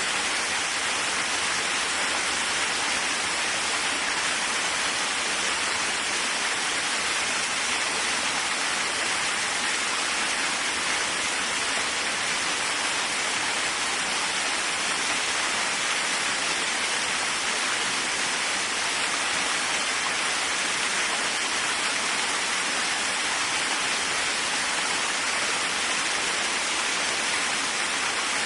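Waterfall: a steady, even rush of falling water, with no change in level.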